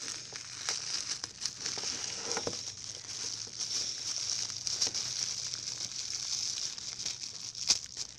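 A thin plastic bag crinkling and rustling as it is handled and cut open with scissors, with a few sharp snips along the way.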